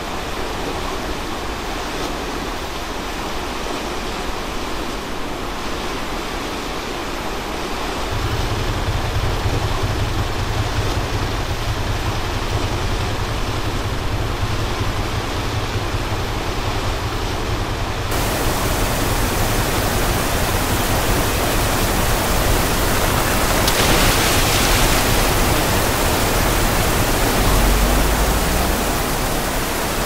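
Waterfall rushing steadily, a continuous noise of falling water. A deep rumble comes in about eight seconds in, and a brighter hiss joins about eighteen seconds in.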